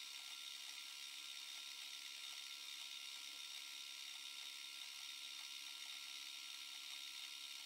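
Faint, steady, high-pitched machine whine with a few constant hum tones beneath it.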